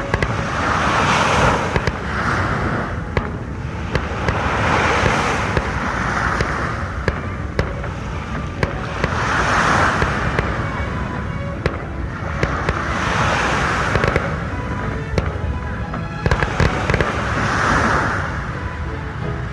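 Fireworks display: a steady run of sharp bangs and crackling pops, over a hiss that swells and fades about every four seconds.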